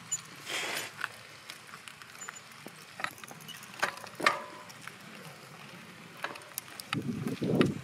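Scattered clicks and knocks from a moving bicycle and its camera mount rattling over the road, one louder knock about four seconds in. A gust of wind buffets the microphone near the end.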